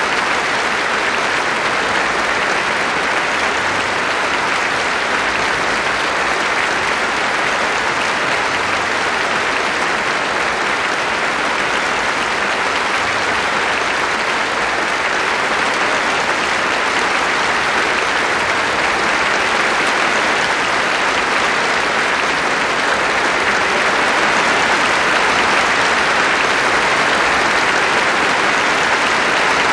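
Concert-hall audience applauding at the end of a choral-orchestral performance: steady, dense clapping that grows a little louder near the end.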